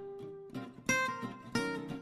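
Background music of plucked guitar notes, each struck note ringing and fading, with a fresh group of notes about a second in.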